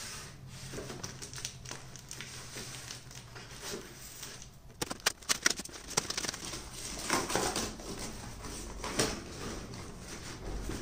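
Cardboard packaging being cut open and torn by hand: rustling and crinkling of cardboard and packing tape, with a quick run of sharp clicks about five seconds in.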